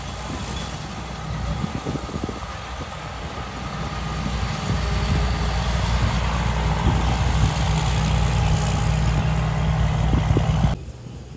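Rice combine harvester at work: its engine and threshing machinery run steadily, growing louder about halfway through, then drop away abruptly near the end.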